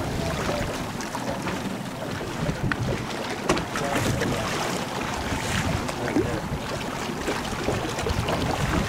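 Wind buffeting the microphone over choppy open sea, with water sloshing against a boat's hull and a few light knocks.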